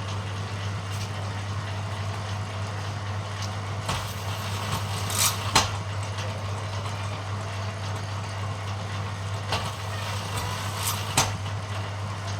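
Bamboo thinning machine running with a steady hum, with a few short sharp knocks and scrapes as a bamboo strip with nodes is worked through it, the loudest a pair about five seconds in.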